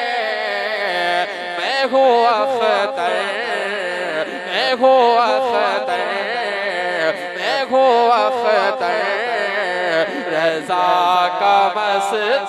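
Man singing an Urdu devotional song into a microphone in long, drawn-out phrases, the melody wavering and heavily ornamented.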